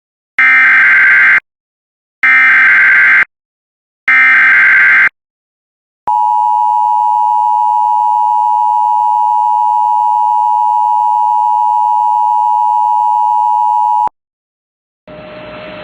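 Emergency Alert System alert opening: three loud, one-second bursts of warbling SAME header data tones, then the steady EAS attention tone held for about eight seconds and cut off abruptly. A faint radio hiss comes in near the end.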